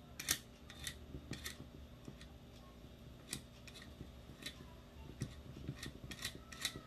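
Irregular light metallic clicks, about a dozen, from a screwdriver working screws into a metal Ver3 airsoft gearbox shell and the shell being handled as it is closed up.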